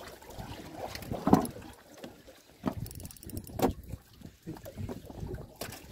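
Water slapping against the hull of a small fishing boat at sea, with a few irregular knocks and thuds.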